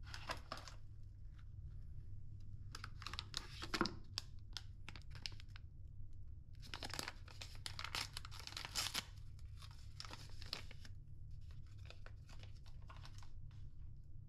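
Brown paper wrapper torn open and crinkled by hand, in several short bursts, as a small round bar of soap is unwrapped, over a steady low hum.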